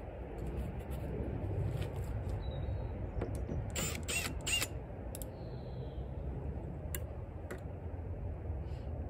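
Wooden hive boxes being handled and fitted together: scattered sharp clicks and creaks, a cluster of them about four seconds in, over a steady low rumble.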